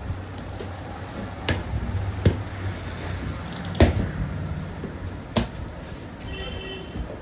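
About four sharp knocks and clicks, spaced irregularly, over a low steady hum: boxed motorcycle accessory parts being handled while unpacked.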